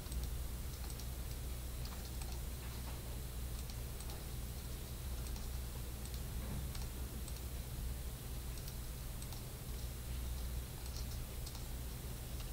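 Light, irregular computer keyboard keystrokes and mouse clicks over a steady low hum.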